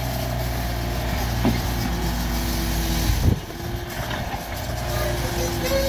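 Mini excavator's diesel engine running steadily, with a single thump a little over three seconds in, after which it runs somewhat quieter.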